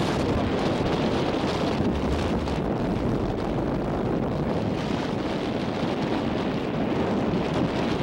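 Strong wind blowing across the microphone: a steady rushing rumble from a gusting wind of about 20 miles an hour.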